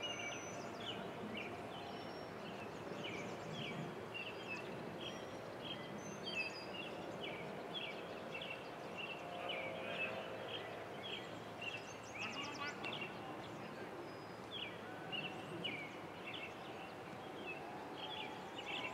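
Steady outdoor background noise with a short high chirp repeating two or three times a second.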